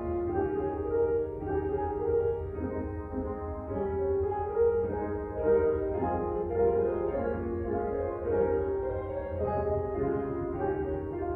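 Instrumental background music with sustained notes that change about every second.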